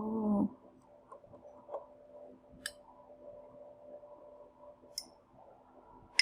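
A few sharp, isolated clicks from cooking at a frying pan of noodles and egg frying in butter, over a faint steady hum.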